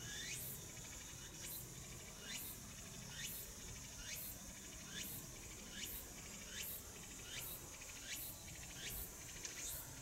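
Outdoor chirping: a high call that falls steeply in pitch, repeated a little more than once a second and quickening slightly toward the end, over a steady high hiss.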